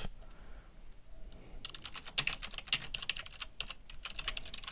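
Typing on a computer keyboard: a quick run of keystrokes that starts about a second and a half in.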